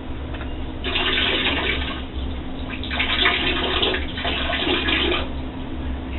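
Water running and splashing in a bathroom, rising in three surges of about a second each over a steady low hum.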